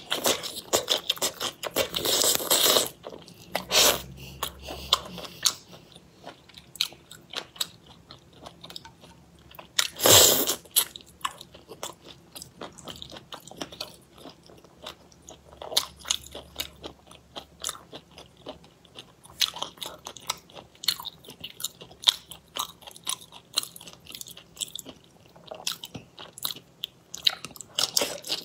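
Close-miked eating sounds: biting into and chewing pieces of fish in chili sauce, a steady run of small wet clicks with heavier bursts of bites at the start, about ten seconds in, and at the end.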